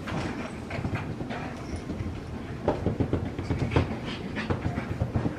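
Seven-week-old French Bulldog puppies panting as they play, with irregular light clicks and rustles of paws and toys on a blanket.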